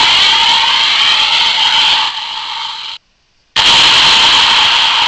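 Electronic jet-engine sound effect from a Toy State Freedom Force toy fighter jet's built-in speaker, played twice: the first burst drops in level about two seconds in and cuts off suddenly about three seconds in, and the second starts about half a second later.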